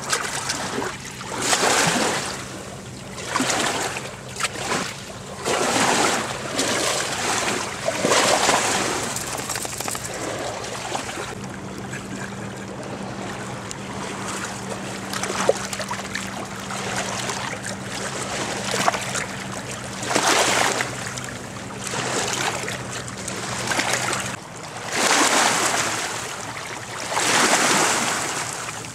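Small waves lapping and washing onto a rocky lakeshore, coming in surges every couple of seconds, over a low steady hum.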